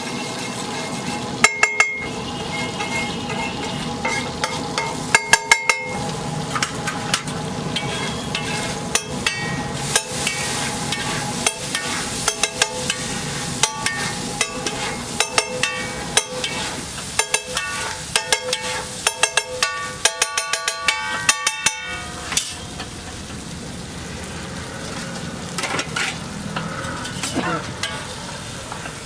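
Food sizzling in a hot pan while a metal spatula stirs and chops it, striking the pan again and again with sharp clinks that ring. The strikes come thickest through the middle stretch and thin out near the end.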